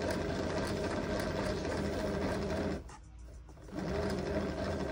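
A small motor-driven machine runs steadily with a whirring hum. It stops for just under a second past the middle, then starts up again.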